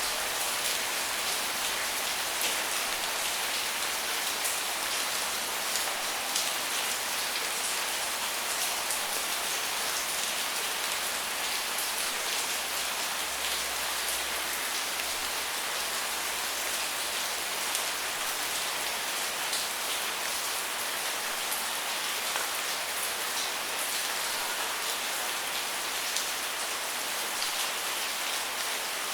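Steady rain falling on a surface, a dense even hiss with many small drop ticks and no let-up.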